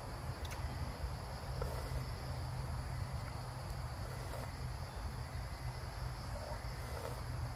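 Steady chorus of insects in a forest, a continuous high-pitched trill, over a low steady hum.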